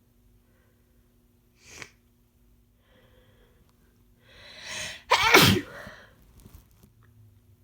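A person sneezing once, loudly and without covering, while sick. A short breath comes near two seconds in, then a drawn-in breath builds for about a second before the sudden, explosive sneeze, and faint breathing follows it.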